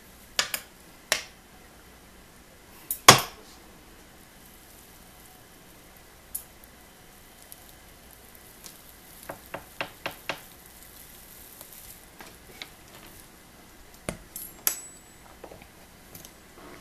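Scattered sharp metallic clinks and knocks of steel feeding tongs against a glass-fronted snake enclosure. The loudest comes about three seconds in, with a quick run of small clicks around ten seconds and two more near the end.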